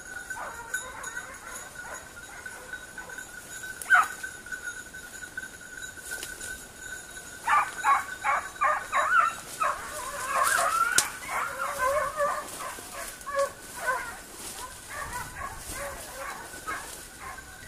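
Basset griffon vendéen hounds giving tongue in cover, the sign of the pack working the scent of game. From about halfway through, several hounds bay in quick repeated cries that overlap, then thin out toward the end. A single sharp sound comes about four seconds in.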